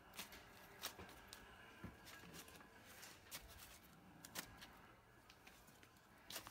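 Faint rustling and scattered crackles of dry corn husks as wrapped tamales are packed into a steamer pot.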